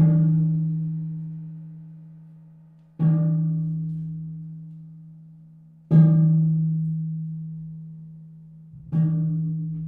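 A low-pitched resonant percussion instrument struck four times at an even pace, about three seconds apart. Each note rings out on one steady low tone and fades slowly until the next strike.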